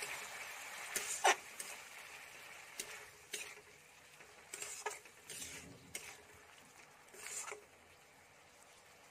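Metal spatula scraping and stirring a thick tomato-and-spice masala around a steel kadhai, in short irregular strokes, over a faint sizzle of the masala frying with a little added water. The strokes thin out near the end.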